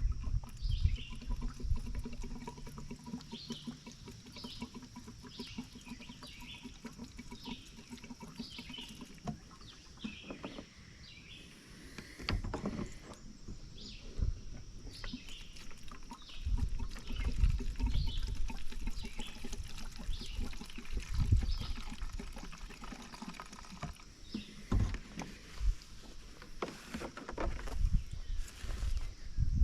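Birds chirping over and over in the background, with scattered low knocks and clatter of parts being handled.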